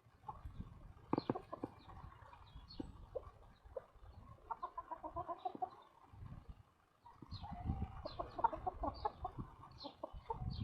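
Hens clucking in short runs of quick repeated calls, busiest in the middle and toward the end.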